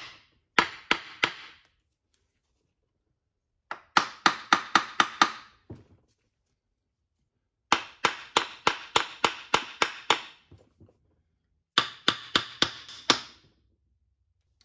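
Light hammer taps on the aluminium right crankcase cover of a Honda ATC90 engine, to break it loose from the crankcase. The taps come in four quick runs of a few to about ten strikes each, with pauses between.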